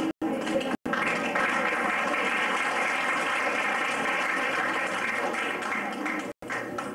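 An audience clapping, a dense even patter over faint background music, with brief dropouts of the old tape near the start and end.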